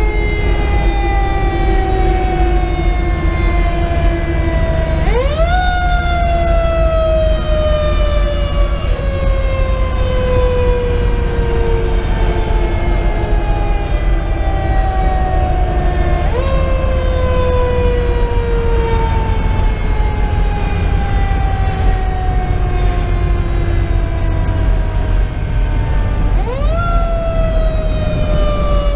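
Federal Q2B mechanical siren on a fire engine, heard from inside the cab. It winds up quickly three times, about every eleven seconds, and each time its wail falls slowly in pitch as the rotor coasts down, over the low rumble of the moving truck.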